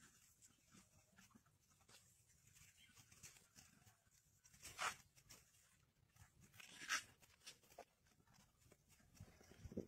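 Small knife blade scraping and shaving bark off a thin woody stem. Mostly faint, with two short louder scrapes about five and seven seconds in and a soft bump just before the end.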